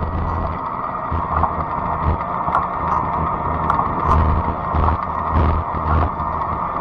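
Fat-tire electric bike riding along a trail: a steady hum, wind gusting on the microphone, and a few light ticks.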